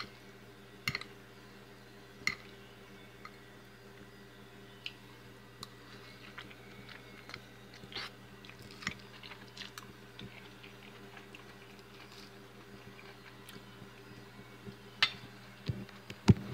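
Someone eating crunchy fried chickpea rolls: chewing and crunching, with a fork clicking now and then against a ceramic plate, in scattered sharp clicks over a steady low hum. A few louder knocks come near the end.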